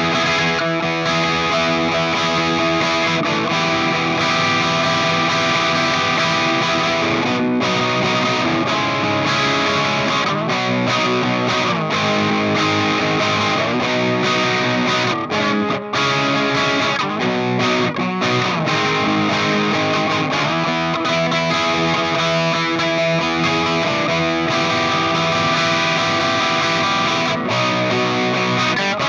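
Electric guitar played through distortion and effects: sustained chords ring out, with the pitch sliding between chord positions several times.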